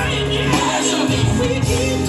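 Live gospel band music playing through a sound system, with steady bass and sustained chords, and a voice faintly singing or ad-libbing over it.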